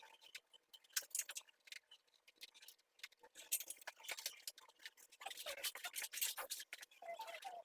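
Flexible plastic aircon drain hose being cut and worked by hand: irregular clicking, snipping and scraping, thickest in the second half.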